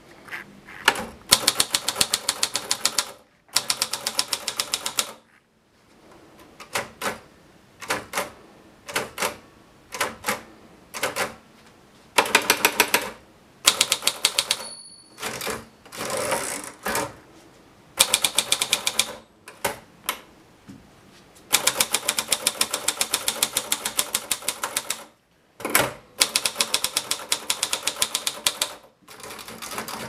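Manual portable typewriter (a Monpti) being typed on in quick bursts of sharp key and typebar strikes, with pauses between words and lines. The carriage-return lever is worked between lines, and a short ringing tone about halfway through fits the typewriter's end-of-line bell.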